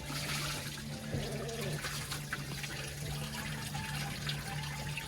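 Water draining and trickling out of a disconnected hose at the boat engine's water pump, emptying the cooling system for winter, over a steady low hum.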